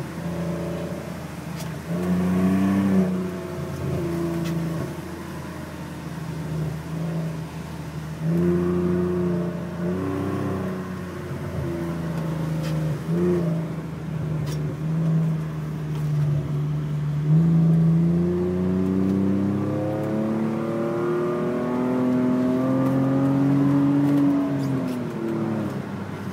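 BMW 523i E39's inline-six engine running through a handmade aftermarket exhaust, with several short revs and then a long, steady rise in pitch that drops away near the end.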